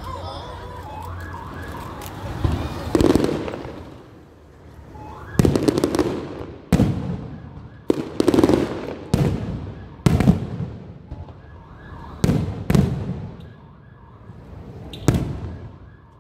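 Aerial firework shells bursting overhead: about a dozen sharp booms, some in quick pairs, each trailing off in a rumble. A repeating stepped electronic alarm tone sounds in the first two seconds.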